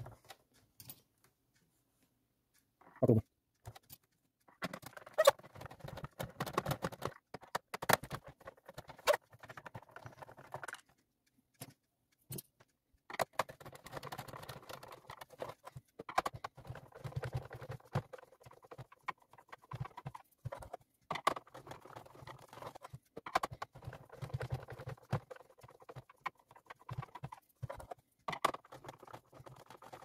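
Hand screwdriver backing screws out of the plastic chassis of a Xiaomi Mi Robot Vacuum 1S, with irregular clicks, scrapes and rattles of the plastic housing being handled. The sounds come in spells with short pauses, and the first few seconds are nearly quiet.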